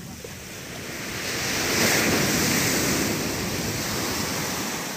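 Sea wave washing in on the shore: a rush of surf that swells about a second in, peaks, then eases away.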